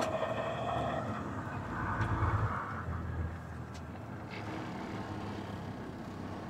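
Diesel engine of heavy farm equipment running, rising briefly about two seconds in as it is revved or put under load, then running steadily.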